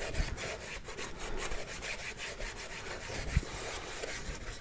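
Paintbrush scrubbing acrylic paint around in a plastic palette compartment, a quick, uneven run of scratchy rubbing strokes as yellow ochre and white are mixed into a gray.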